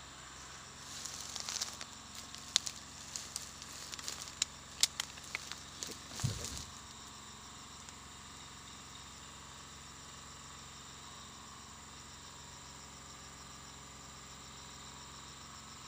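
Dry leaves and twigs crackling and snapping in undergrowth for several seconds, with a low thud about six seconds in. After that only a steady insect chirr remains.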